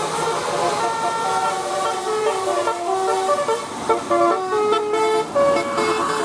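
Bus 'telolet' multi-tone horn playing a tune: several horn pitches sounding together and stepping from note to note, turning to short choppy notes around the middle.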